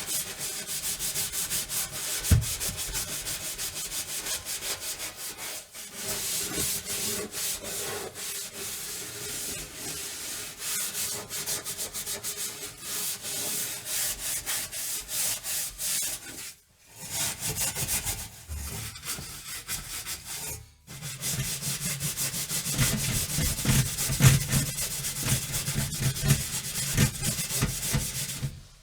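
Oven being scrubbed by hand: rapid back-and-forth scrubbing strokes against the oven surface, with a few brief pauses between bouts.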